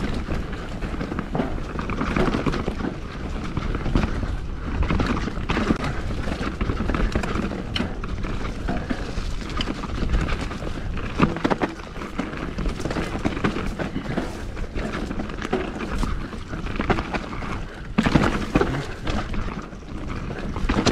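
Mountain bike ridden along a dirt trail: a continuous rush of noise with frequent knocks and rattles as it goes over bumps.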